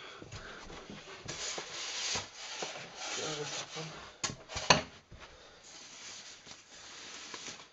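Rustling and rubbing of soft white protective wrapping and polystyrene packing as a pair of speakers is unpacked, with two sharp knocks a little after four seconds in, the loudest sounds.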